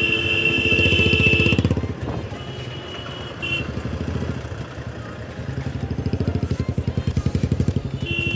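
Motorcycle engine running at low speed with rapid, even firing pulses. A horn sounds for under two seconds at the start, a shorter honk comes about two and a half seconds in, and another begins near the end.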